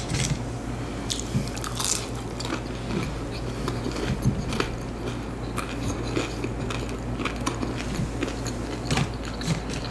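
A person biting and chewing a breaded fried chicken strip close to the microphone: irregular crunches and wet mouth sounds, over a steady low hum.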